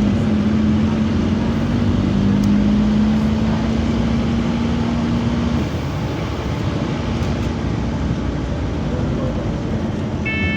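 Scania bus running, engine and road noise, with a steady low hum that stops about halfway through. A short, high chime sounds right at the end.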